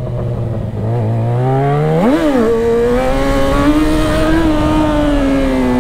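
Yamaha XJ6's 600 cc inline-four engine pulling away: the revs climb, jump and dip sharply about two seconds in, then hold steady under light throttle and fall away near the end.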